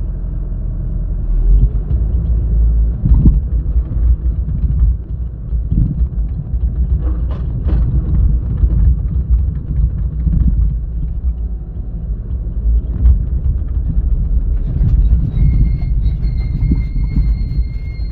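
Excavator's diesel engine running heavily while it loads a dump truck, with occasional metallic clanks. A steady high whine joins in about three seconds before the end.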